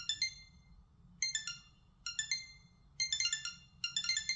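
Xiaomi Buds 4 Pro earbuds playing their find-my-earphones alarm: short runs of quick, high-pitched beeps stepping down in pitch, repeating about once a second.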